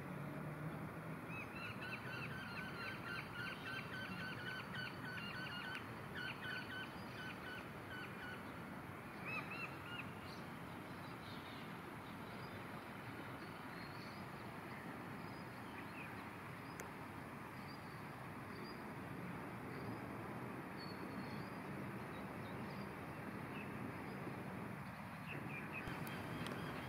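Steady outdoor background noise with small birds calling: a quick series of repeated chirps through the first third, then scattered higher calls.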